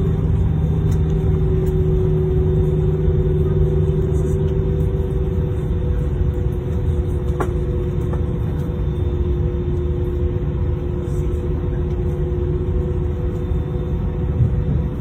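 Steady low engine rumble with a humming tone that drifts slowly lower; a deeper hum under it fades out about five seconds in.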